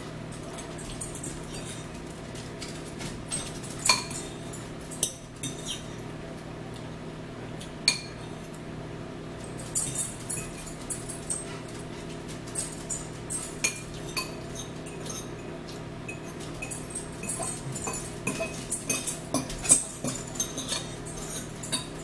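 Metal fork and spoon clinking and scraping against bowls as two people eat noodles: scattered sharp clicks, a few louder ones, over a steady low hum.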